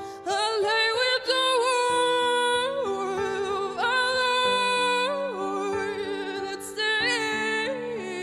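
A woman singing long held notes with vibrato, stepping up and down in pitch, over sustained accompaniment chords.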